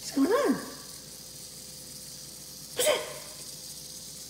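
Small Yorkshire terrier barking at toy cockroaches: a rising-and-falling bark at the start and a shorter, sharper bark about three seconds in.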